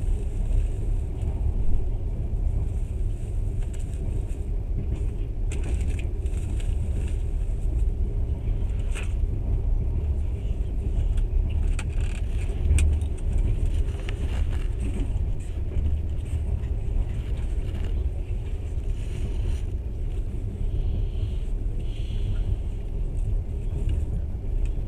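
Passenger train running along the track, heard from inside the carriage: a steady low rumble with a few scattered clicks and knocks.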